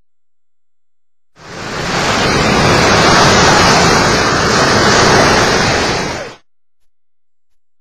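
Ocean surf breaking and washing up the beach: a loud, steady rush of water that starts about a second and a half in and cuts off abruptly about five seconds later.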